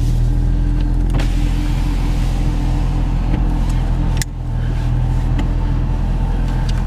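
Car engine idling steadily, with a power window motor running from about a second in and stopping abruptly about four seconds in.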